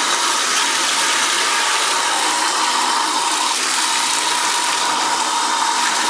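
Bathtub tap running: a steady gush of water from the spout into the tub, with a steady whistle-like tone in the rush.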